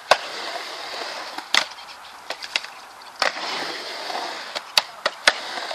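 Skateboard wheels rolling on a concrete mini ramp, a steady rushing roll broken by several sharp clacks of the board and trucks as the rider turns on the ramp.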